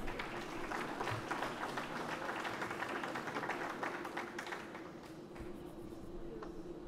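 Audience applauding with dense clapping that thins out and fades a little over halfway through, over a steady low hum.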